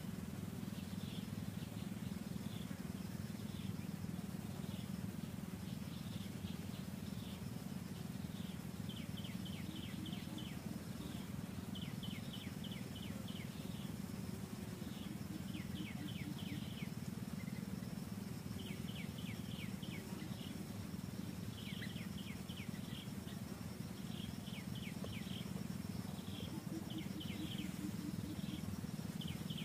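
Forest ambience: short series of rapid high chirps from a small animal, repeating every second or two, over a steady low rumble and a thin, steady high whine.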